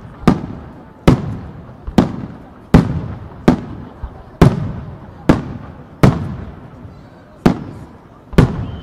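Aerial firework shells bursting one after another, about ten sharp bangs roughly a second apart, each trailing off in echo.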